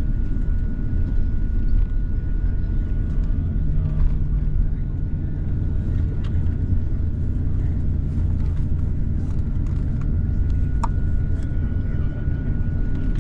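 Cabin noise inside an Airbus A350-900 on the ground before takeoff: a steady low rumble with a thin steady whine above it and a few faint clicks.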